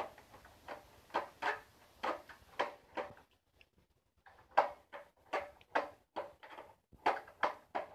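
Skateboard knocking against concrete over and over as it is rocked up onto its tail and dropped back down, with sharp wooden clacks about two a second and a short pause about three seconds in.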